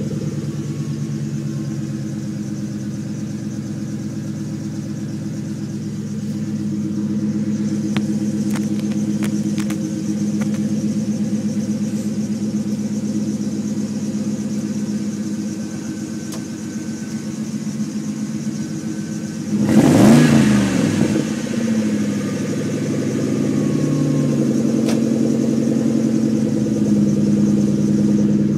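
2000 Mercury Grand Marquis V8 idling steadily through a dual exhaust with single-chamber Flowmaster mufflers. About two-thirds of the way through it gives one short, loud rev that rises and falls straight back to idle.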